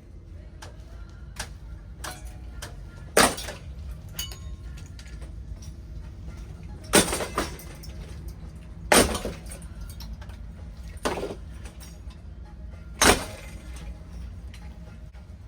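A ceiling fan being struck and broken apart: five sharp cracking impacts about two seconds apart, with smaller clicks between them, over a steady low hum.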